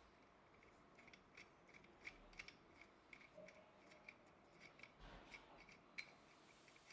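Near silence with faint, irregular small clicks, about one or two a second, the sharpest about six seconds in.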